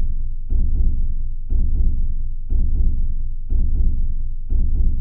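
Background music of deep, heavy drum hits in pairs, two quick strikes repeating once a second like a heartbeat, with nothing else playing.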